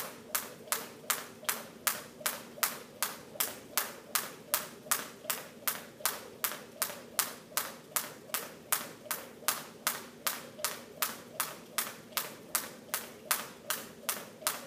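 Jump rope slapping a hard gym floor on every turn, a steady run of sharp ticks nearly three a second.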